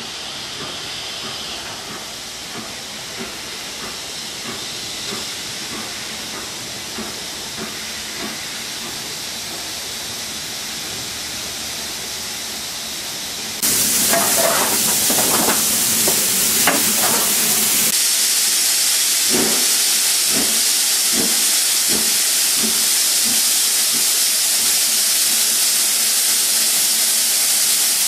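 BR Standard Class 9F 2-10-0 steam locomotive hissing steam, with faint ticks as it comes along the line. About halfway through the hiss jumps suddenly to loud and steady, and a few seconds later a run of sharp knocks sounds through it.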